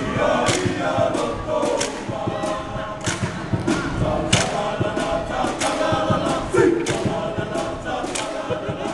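A large group of boys singing a Tokelauan song loudly in chorus, with sharp percussion strikes throughout.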